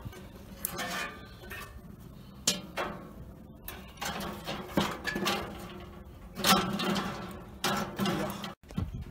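Irregular metal clinks, knocks and scrapes from a charcoal grill's wire-mesh grate and steel drum being handled. There are about half a dozen sharp knocks, the loudest some six and a half seconds in.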